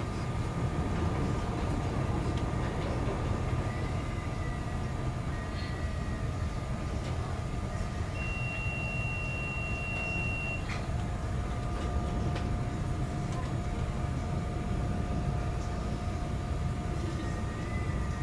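Chicago 'L' rapid-transit train running on elevated track, heard from inside the car: a steady low rumble of wheels and running gear with a faint steady whine. A thin high squeal holds for about two and a half seconds near the middle as the train takes a curve, and a couple of sharp clicks from the track follow.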